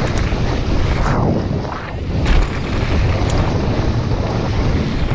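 Downhill mountain bike descending fast on a loose gravel track: wind buffeting the microphone over a steady rumble of tyres on stones, with a few sharp knocks from the bike hitting bumps.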